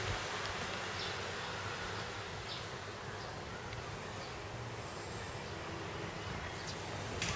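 Steady outdoor background hiss with a few faint short ticks scattered through it.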